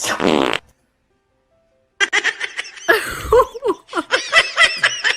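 Music with laughter, after a brief burst of sound and a second of dead silence at a cut.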